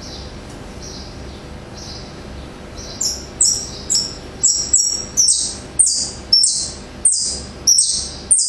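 A caged songbird singing. A few soft high notes are followed, about three seconds in, by a run of about a dozen loud, high notes at roughly two a second, each sliding downward in pitch.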